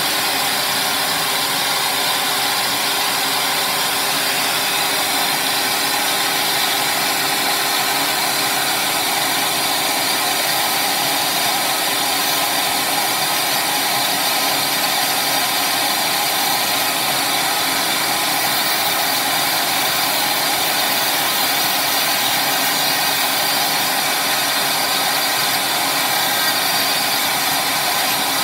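Dremel rotary tool running steadily while its thin bit cuts away the plastic of a DS1216 chip socket, together with the constant rush of a dust-extraction vacuum hose held at the work.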